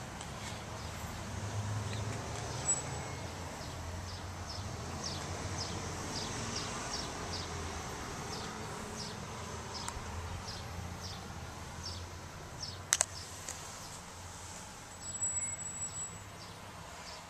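Outdoor ambience: a low steady hum under a run of short, high chirps at about two a second, typical of an insect or bird. A single sharp click comes about three-quarters of the way through.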